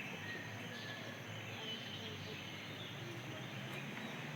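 Steady outdoor background ambience of distant voices, with a few faint bird chirps over it.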